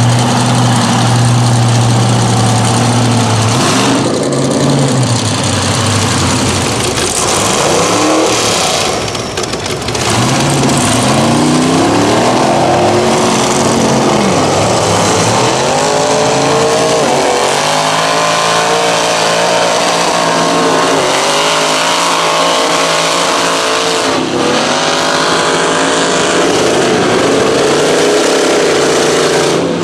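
Big-tyred mud-bog trucks' engines revving hard as they drive through the mud, over a constant loud din. A steady engine drone opens, and from about ten seconds in the revs climb and fall again and again.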